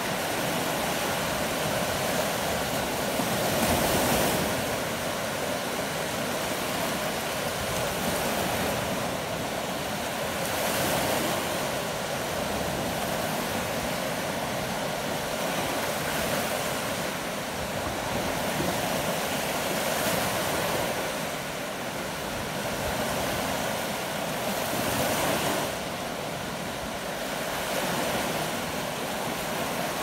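Small lake waves washing up on a sandy beach, a steady rush of water that swells every few seconds, with some wind.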